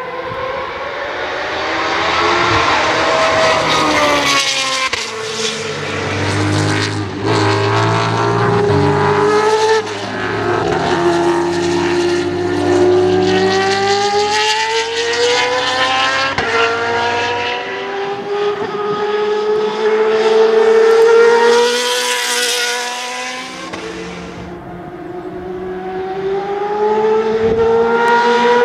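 Dallara GP2/05 formula car's 4-litre V8 running hard on track, its pitch climbing under acceleration and dropping back at each gear change or braking zone. The engine note falls away near the end, then builds again.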